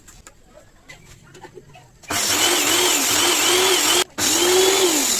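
Electric hand planer with a newly fitted armature, test-run: it is switched on about two seconds in and runs loud, its pitch wavering up and down, is cut off for an instant about four seconds in, then runs again and starts to slow at the end.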